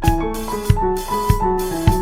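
Background music: a keyboard melody over a drum kit, with a steady beat of about one and a half drum hits a second that starts right at the beginning.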